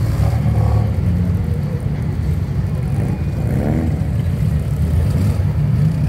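Classic car engines running at low speed as the cars crawl past in a queue, a steady low rumble.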